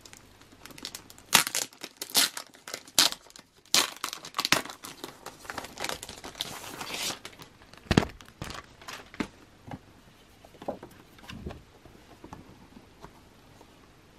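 Plastic sleeve and paper packaging crinkling and rustling as a poster folder is opened and posters are slid out. A run of sharp crackles comes first, then a longer scraping rustle, and a soft thump about eight seconds in, followed by lighter rustles.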